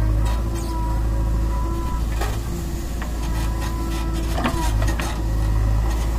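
JCB 3DX backhoe loader working its boom: the diesel engine runs steadily under hydraulic load with a thin steady whine, and a few sharp clicks and knocks come about two seconds in and again near the end.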